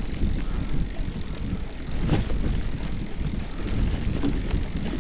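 Wind buffeting the camera microphone and the rumble of a Shulz Lone Ranger bicycle being ridden over a dirt forest track, with a few short knocks from the bike over bumps.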